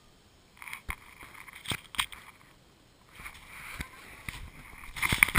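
Scuffing and rubbing against a GoPro camera with several sharp knocks as a long-tailed macaque clambers over it and handles it. The loudest knocks bunch together near the end.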